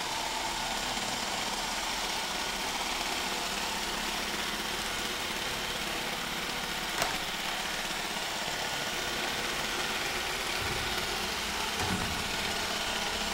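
Roomba robot vacuum running, a steady even hiss of its vacuum motor and brushes, with one sharp click about halfway through and a couple of low thuds near the end.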